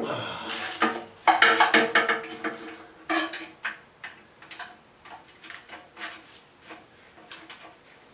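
Metal tools and bolts clattering: a loud ringing clang at the start, a busy run of clinks and knocks for about three seconds, then lighter, scattered clinks that die away near the end.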